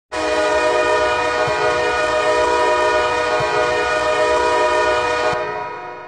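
Ice hockey goal horn, a chord-toned air horn like a train horn, sounding one long steady blast that starts abruptly and cuts off about five seconds in, leaving a short fading tail.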